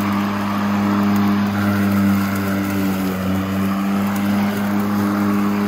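Worx Nitro 40V 20-inch cordless push lawn mower running as it is pushed across the grass: the brushless electric motor and spinning blade give a steady hum over a rushing whoosh.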